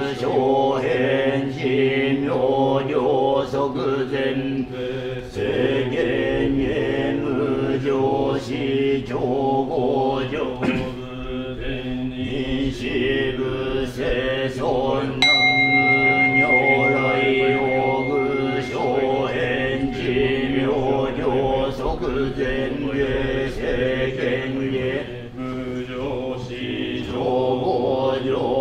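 Buddhist monks chanting a sutra together in steady, drawn-out voices for a statue's eye-opening consecration. About fifteen seconds in, a bell is struck once and its tone rings on for a few seconds under the chanting.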